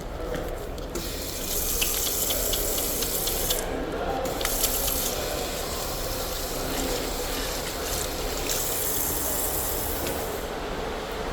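Steady rushing of heavy rain and tyre spray heard from inside a moving car, with a scatter of light ticks about two seconds in.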